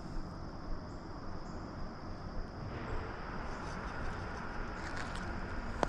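Steady creek-side outdoor background noise, with a faint, steady high-pitched tone running through it.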